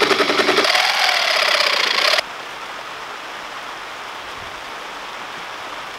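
Electric reciprocating saw cutting through the remaining bolts that hold the keel timber to the hull, running hard with a shifting whine, then stopping abruptly about two seconds in. A steady, even hiss follows.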